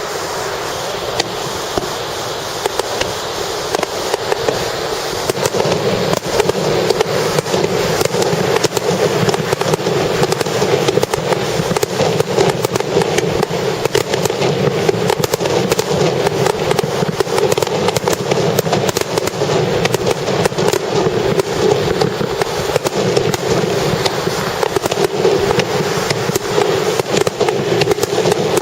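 Starmine fireworks barrage: many shells bursting in quick succession, sharp cracks and bangs overlapping almost without pause, growing louder and denser about five seconds in.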